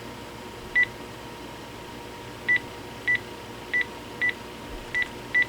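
Key-press beeps of a Panasonic KX-TG6841 cordless phone as its buttons are pressed to move through the menus: seven short, single-pitched beeps at an uneven pace.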